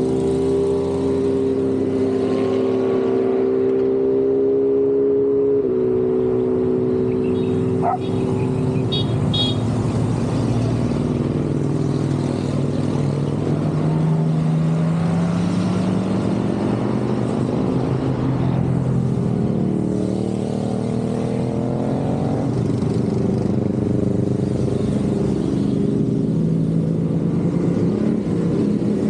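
A continuous stream of motorcycles riding past, many engines running together, their notes rising and falling as bikes go by.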